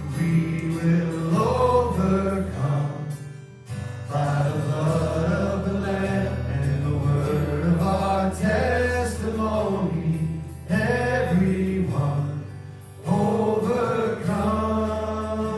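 Worship music: a sung melody over a steady bass line, in phrases with short breaks between them.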